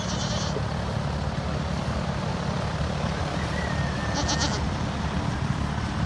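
A young goat bleating over a steady low rumble.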